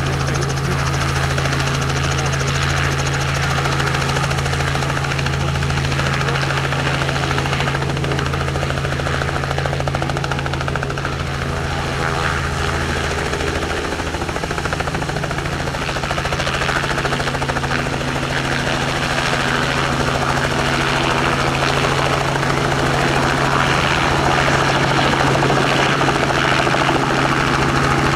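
Robinson R44 helicopter lifting off and flying low past: its six-cylinder Lycoming piston engine and two-blade main and tail rotors running steadily, growing louder near the end as it comes closer.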